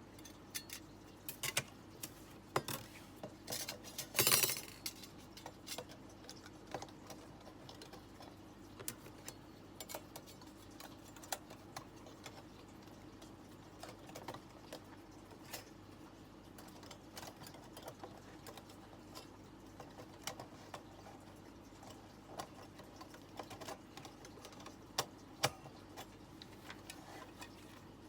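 Thin metal panels and parts of a small stainless-steel fire stand clicking and clinking as they are fitted together by hand: scattered light taps throughout, with a brief denser rattle about four seconds in.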